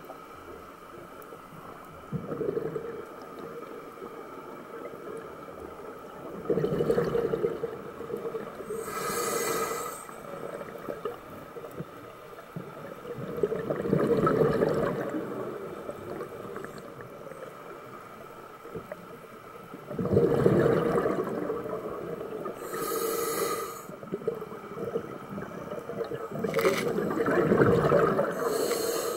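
Scuba diver breathing through a regulator underwater: bubbling exhalations about every six to seven seconds, with short hissing inhalations between them.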